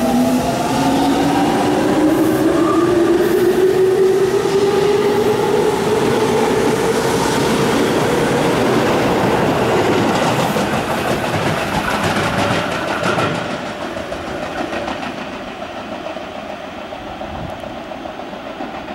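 Tobu electric commuter train pulling out of the station and accelerating: the traction motor whine climbs steadily in pitch over the first several seconds over the clatter of the wheels. It fades as the train draws away in the second half.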